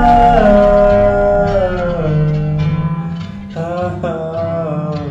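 A song playing: a singer holds long notes with no recognisable words, sliding down in pitch, over guitar accompaniment.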